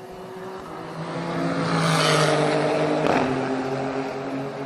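Renault Sport RS 01 race car with its twin-turbo V6 passing by on the straight: the engine note swells, is loudest about two to three seconds in, and drops in pitch as the car goes past, then fades away.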